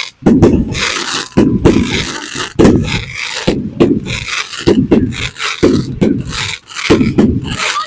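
Fireworks bursting overhead in quick succession, about two sharp bangs a second, each with a short rumbling tail.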